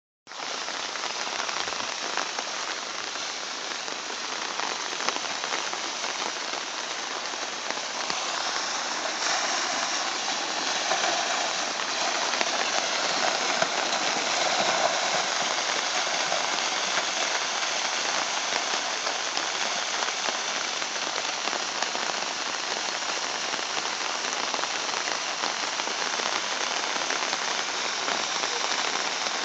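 Steady rain with muddy runoff water streaming down a freshly slipped slope of loose earth and stones, a continuous hiss that swells a little about a third of the way in.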